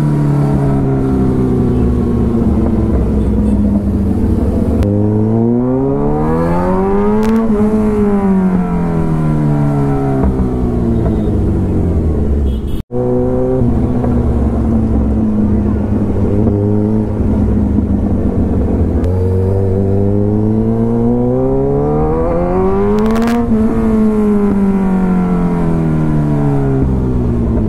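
Kawasaki Ninja motorcycle engine heard while riding, its note climbing smoothly as the bike accelerates and falling back as it slows, twice. The sound cuts out for an instant about halfway through.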